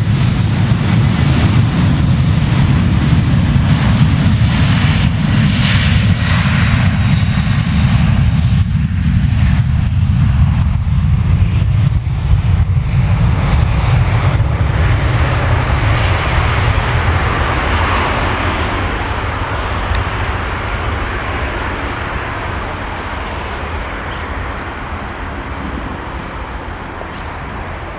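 Boeing 737 jet airliner's engines at takeoff power during the takeoff roll and lift-off: a loud low rumble that gives way to a higher hiss about halfway through, then fades steadily as the jet moves away.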